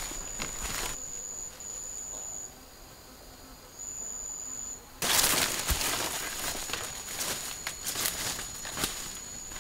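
A steady high-pitched insect trill runs throughout, breaking off briefly a few times in the first half. From about five seconds in, louder barefoot footsteps crunch through dry leaf litter and brush past foliage.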